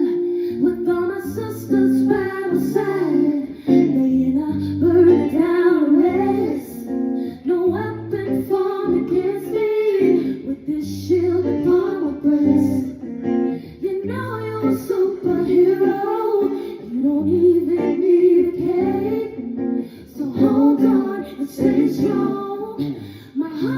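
Music: a song with a singing voice over a repeating bass line and a steady beat.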